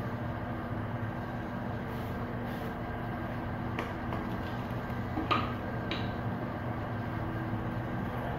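Steady low mechanical hum made of several fixed tones, with a few faint clicks about four to six seconds in.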